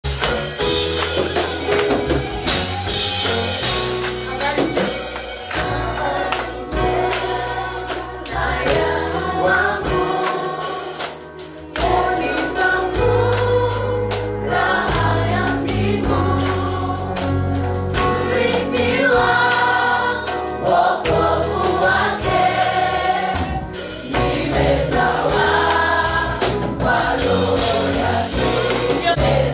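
Church choir singing an upbeat gospel praise song over a band with bass and a steady percussion beat. The bass drops out briefly about eleven seconds in, then comes back.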